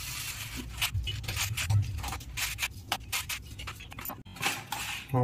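Activated carbon granules poured from a plastic refill pouch into a plastic filter cartridge, with the pouch crinkling: a dense run of short gritty rattles and rustles.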